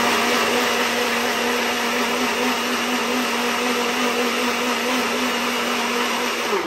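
Nutribullet personal blender motor running steadily at one even pitch, blending a thick pepper and onion paste made without water; it cuts off near the end and spins down.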